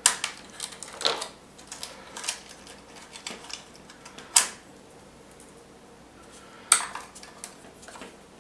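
Handling clicks and taps as a Flytrex tracker is disconnected and taken off its mount: sharp clicks at the start, about a second in, just past four seconds and near seven seconds, with smaller ticks and rattles between.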